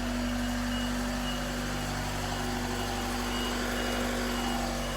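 A truck engine running steadily, with a faint reversing alarm beeping about twice a second over it.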